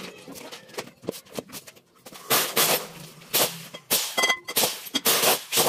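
Kitchen knife peeling and slicing a firm green fruit onto a cutting board: a series of short cutting strokes, one every half second to a second in the second half.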